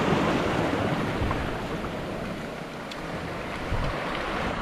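Wind rumbling on the microphone over the wash of sea waves.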